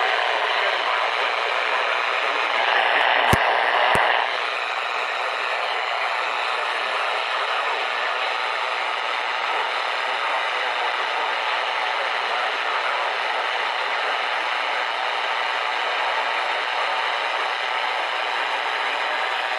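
Steady hiss of static from a weather radio receiver, with no broadcast voice coming through, and two sharp clicks about three and four seconds in.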